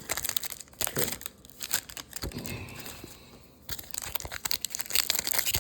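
Trading card pack wrappers crinkling and tearing as packs are opened and handled: irregular crackle with small clicks, easing off for a moment past the middle before picking up again.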